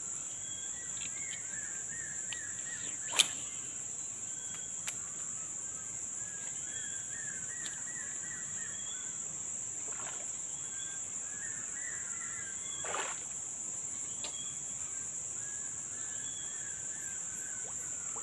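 Steady high-pitched drone of insects, with repeated short warbling chirps over it. A sharp click stands out about three seconds in, with a few fainter ticks later.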